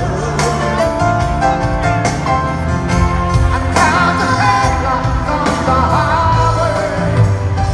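Live pop-rock band music with a lead singer, coming loud over an outdoor festival sound system, with a steady bass line underneath.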